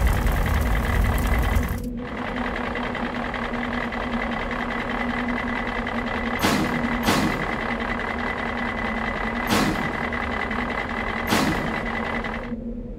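Cartoon sound effect of a tractor engine running steadily, a rapid mechanical chatter over a steady hum, with four brief hits in the second half.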